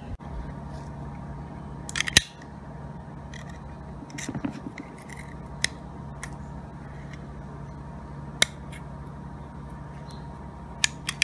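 A metal-and-plastic safety glass scraper being handled and taken out of its plastic blister pack: scattered sharp clicks and snaps with some plastic crackling, the loudest snaps about two seconds in and near the end, over a steady low hum.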